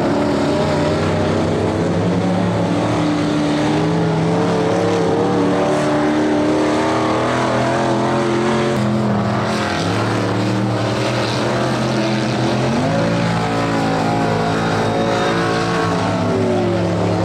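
Engines of several modified combine harvesters racing together, running and revving as a steady overlapping engine noise. The engine note changes pitch as they accelerate and ease off, stepping up sharply around ten seconds in and again about three seconds later.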